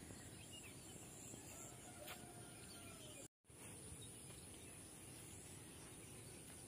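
Near silence: faint outdoor ambience with a few faint bird calls, broken by a brief dropout to total silence about three seconds in.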